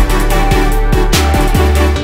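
Background electronic music with a heavy beat: deep bass drum hits that drop in pitch, about two a second, under held synth tones.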